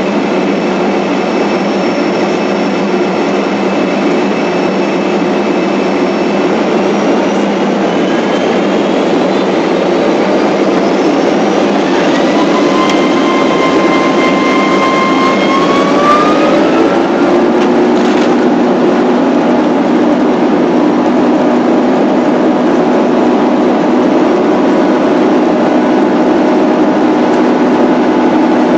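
Boeing 767 jet engines heard from inside the cabin, spooling up for takeoff. Several whining tones climb in pitch over about ten seconds through the middle. After that the engines run loud and steady at takeoff power.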